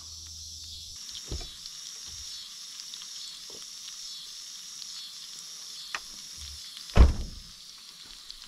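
Wagyu strip steak sizzling as it fries in a pan, with crickets chirping steadily. A single loud thump about seven seconds in.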